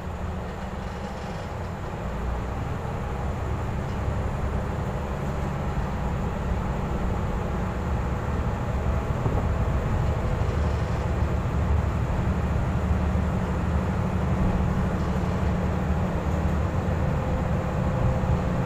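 Kanto Railway KiHa 310 series diesel railcar running, heard from the driver's cab: a steady low rumble of engine and wheels on the rails that grows gradually louder.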